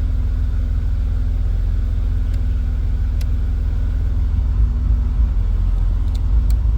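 BMW E34 cabin blower motor running again, a steady low rumble with a constant hum, after the blown 30 amp fuse number 19 that had stopped it was replaced.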